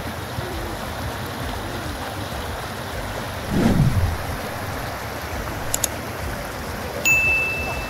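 Shallow stream running over rocks: a steady rush of water. About three and a half seconds in comes a short falling whoosh, near six seconds two quick clicks, and about seven seconds in a bell-like ding that rings for under a second, the sound effects of a subscribe-button overlay.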